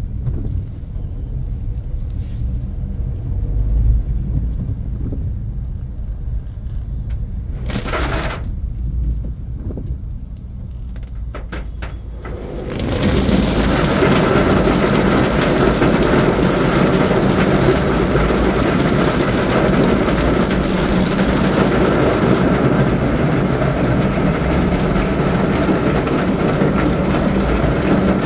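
Car interior: low engine and road rumble, then about halfway through a sudden switch to the loud, steady hiss of heavy rain pelting the roof and windscreen.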